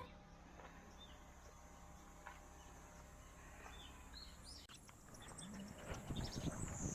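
Faint outdoor ambience with small birds chirping now and then. About five seconds in, a run of light clicks and rustling grows louder.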